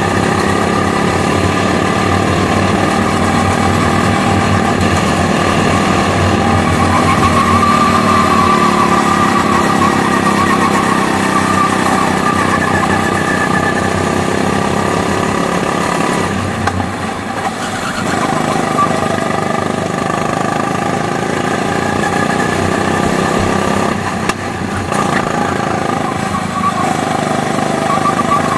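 Go-kart engine running hard through a lap, its pitch rising and falling with the throttle. The engine note drops briefly twice, a little past halfway and again near the end.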